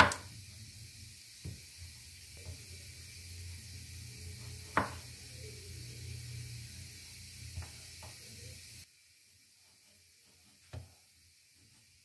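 Chef's knife slicing a cucumber on a wooden cutting board: a sharp knock of the blade on the board at the start, a second strong one about five seconds in, and a few softer taps between and after. A low background hum runs under it and cuts off about nine seconds in.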